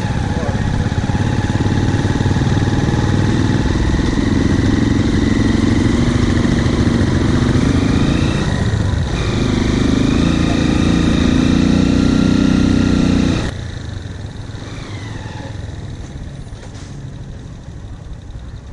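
Motorcycle engine running while riding, with a short dip about halfway through. About two-thirds of the way in the sound drops sharply and stays quieter to the end.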